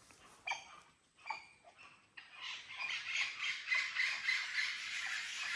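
Parrots squawking: two short calls in the first second and a half, then from about two seconds in a dense chorus of overlapping chattering calls.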